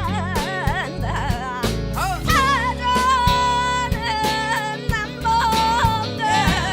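Background music: a sung vocal melody with vibrato over guitar, bass and a steady beat.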